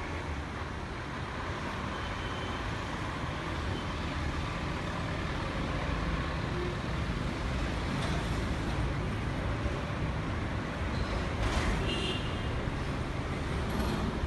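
Steady road traffic from a busy street, with trucks and auto-rickshaws running along it. A brief higher-pitched sound rises above the traffic about twelve seconds in.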